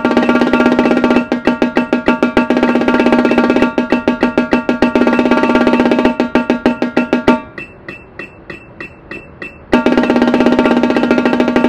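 Marching tenor drums played with sticks in loud, sustained, evenly pulsed rolls. About two-thirds of the way through they drop to a soft run of single taps, about four a second, then the loud rolling comes back near the end.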